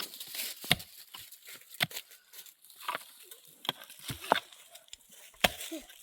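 A series of sharp, irregular knocks, roughly one a second, with scraping and rustling between them.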